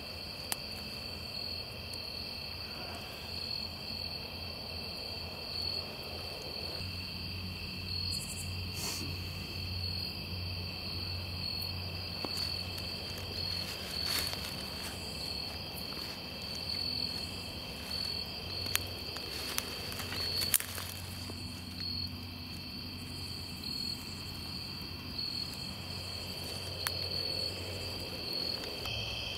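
A steady high chorus of night insects, crickets among them, with footsteps moving through leaf litter and undergrowth and a few sharp snaps.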